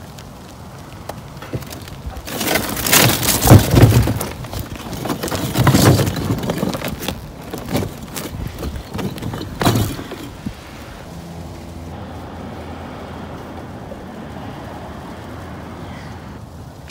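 Brick and crumbling mortar clattering and crashing as pieces of an old brick chimney are broken off and pulled away, a run of rough crashes over several seconds. After that only a quieter, steady low background remains.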